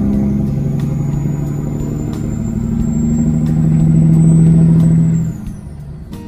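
Kenworth W900 semi truck's diesel engine pulling under load, its note and a high turbo whistle slowly rising. Both drop away about five seconds in as the throttle comes off.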